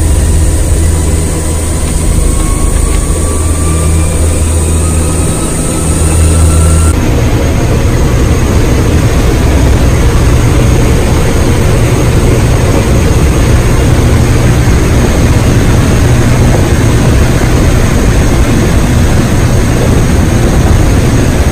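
Steady drone of an aircraft's engines and propellers heard from inside the cabin, changing suddenly in tone about a third of the way through.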